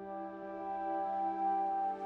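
Slow, sustained background music: held chords that change at the start and swell gently in level.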